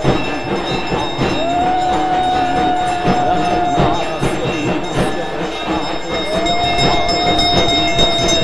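Conch shells (shankha) blown in long held notes that swell in and fall away: one ends just at the start, a long blast runs from about one second to four, and another from about six seconds to eight. A steady brass hand bell rings behind them.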